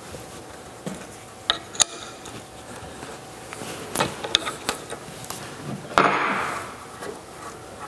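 Light metallic clicks and clinks of a hand tool and small parts being worked loose from the head of a Dake 1-1/2 B arbor press. A louder knock about six seconds in trails off in a short scrape.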